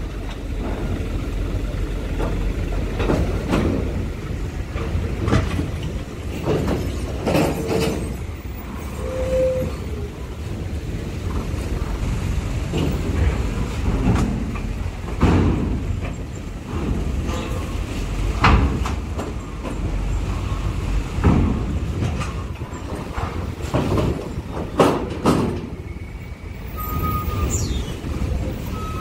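Diesel box trucks driving slowly one after another over a steel ferry ramp. Their engines make a low rumble, and repeated clanks and knocks come as the wheels cross the grated ramp plates. A short tone sounds about nine seconds in.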